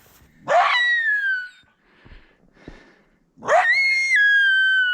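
Coyote caught by the front foot in a foothold trap, giving two high, drawn-out cries: a short one, then a longer one of nearly two seconds. Each shoots up in pitch and then slides slowly down.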